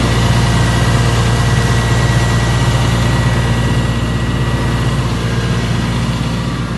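Caterpillar 325CL excavator's diesel engine running steadily, a deep even hum with a thin high whine over it that fades out about five seconds in.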